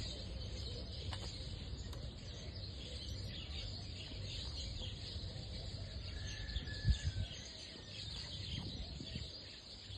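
Outdoor ambience of steady insect and bird chirping, with a few short, dull low thumps about seven seconds in.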